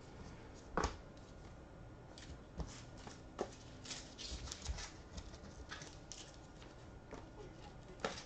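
Trading cards in clear plastic sleeves and holders handled and flipped through by hand: faint rustling, sliding and clicking, with a sharper tap about a second in and another near the end.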